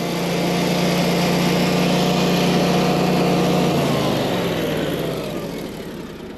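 Natural-gas home standby generator engine running steadily just after starting on the first crank. About four seconds in it drops slightly in pitch and grows quieter.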